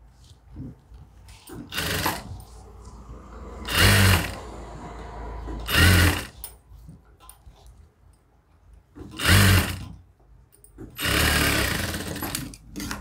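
Sewing machine stitching in five short runs, four of about half a second and a longer one of nearly two seconds near the end, with faint clicks between as the fabric layers are fed and repositioned.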